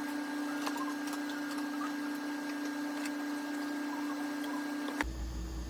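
Steady electrical hum and hiss of a space-mission broadcast audio feed, with faint scattered clicks. About five seconds in it cuts abruptly to a different background with a low rumble.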